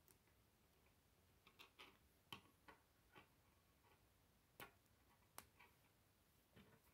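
Faint, irregular clicks and ticks of plastic K'nex rods and connectors being snapped together and handled, about ten sharp clicks in all, the loudest about two and a half seconds in and twice around five seconds in.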